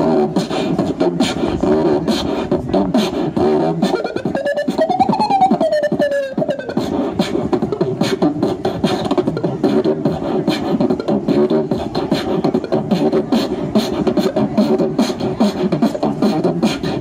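A beatboxer performs into a handheld microphone played through a portable amplifier: fast, tight percussive mouth beats with a hummed bass line. About five seconds in, a sung sweep rises and falls in pitch over the beat.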